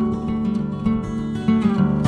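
Background music played on acoustic guitar, a run of plucked notes.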